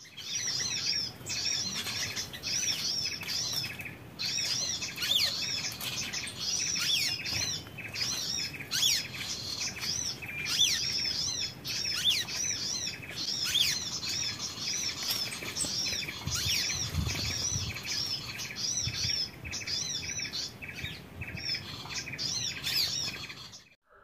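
Small songbirds chirping: a fast, busy run of short, high, arched notes repeated over and over, several calls overlapping.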